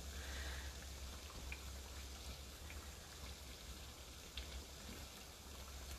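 Strips of pastry dough frying in shallow seed oil in a pan, a faint steady sizzle, with a few light clicks of tongs.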